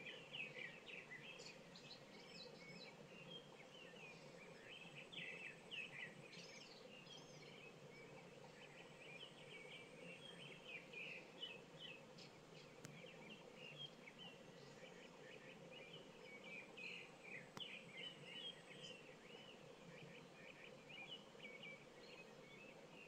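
Small birds chirping and twittering, faint, with many short calls overlapping throughout, over a steady low hum.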